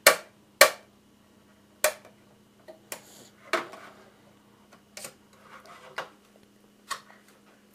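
A can of light media crema being opened and handled: about seven sharp clicks and knocks at irregular intervals, over a low steady hum.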